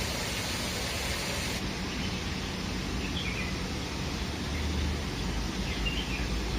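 Steady outdoor background noise with a low rumble, and a few faint bird chirps, about three seconds in and again near the end.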